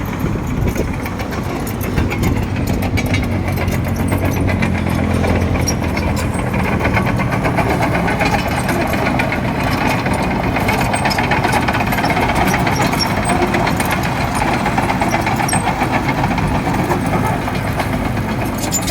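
Heavy earthmoving machine's diesel engine running steadily, with a rapid metallic clatter over it.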